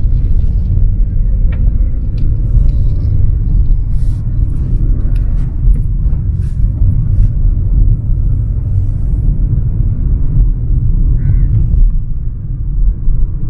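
Steady low rumble of a car driving along, heard from inside the cabin, with a few faint clicks.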